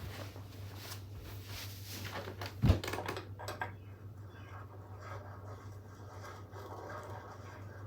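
Hand tools working on a bicycle crank arm bolt: scattered clicks and rustles with one sharp knock about two and a half seconds in, over a steady low hum.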